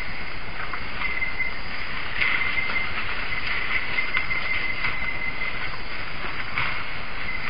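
Night-time rainforest ambience picked up by a trail camera: a steady high-pitched insect drone over hiss, with a few brief rustles.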